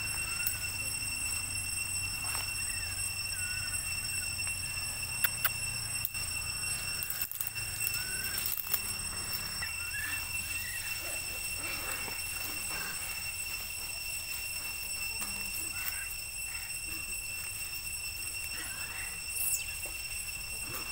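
Forest ambience dominated by a steady high-pitched insect drone, with short high chirping calls scattered throughout and a few sharp clicks.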